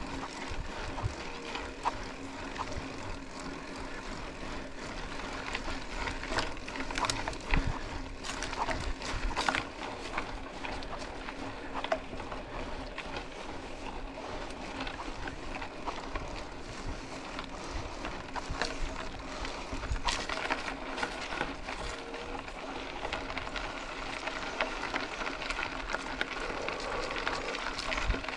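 Mountain bike riding on a dirt road: steady rolling noise from the tyres with frequent rattles and knocks from the bike over the rough surface, and a steady low hum underneath.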